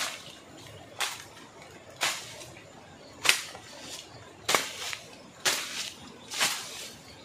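A long-handled hooked bush knife slashing through tall grass and weeds: about seven sharp swishing cuts, roughly one a second.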